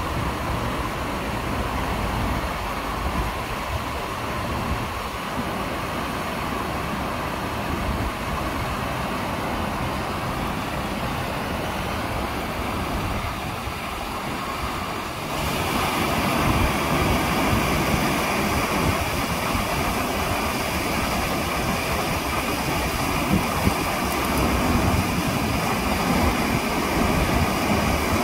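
Man-made waterfall cascading over rock steps: a steady rush of water that grows louder and brighter about halfway through.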